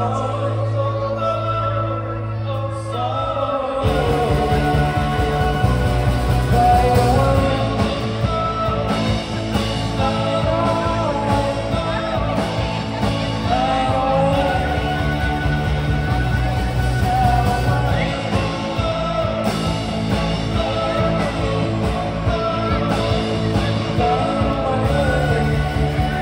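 Live rock band playing through a PA: electric guitars, bass and drum kit with a sung lead vocal. The first few seconds are a held low note, then about four seconds in the full band comes in with the drums.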